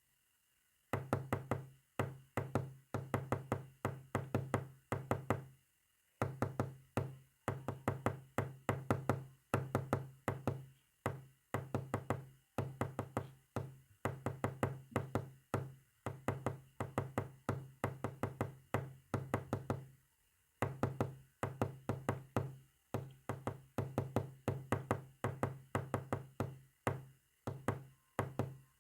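Morse code tapped out as rapid runs of knocks, several a second, each with a short low ring, broken by brief pauses about six and twenty seconds in.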